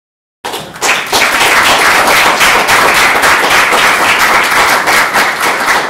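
Audience applauding: dense, steady clapping that cuts in abruptly about half a second in.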